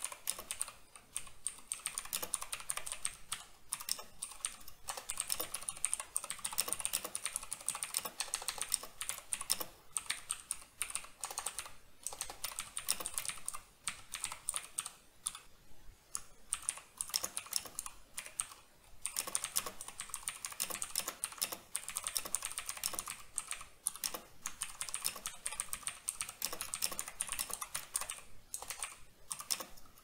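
Steady touch typing on a Razer BlackWidow V3 mechanical keyboard with clicky Razer Green switches: a fast, dense run of key clicks with a few short pauses.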